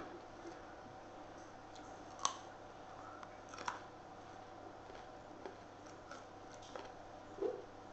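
A few faint, sharp clicks and taps, scattered and irregular, over a steady low background hum; the loudest come about two seconds in, a little after, and near the end.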